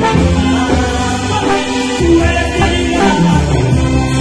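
Live band music played loud through a stage sound system, with a strong bass line under held melody notes.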